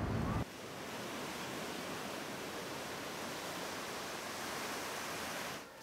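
A steady, even hiss with no pattern or rhythm. It starts abruptly about half a second in, when a lower rumble cuts off.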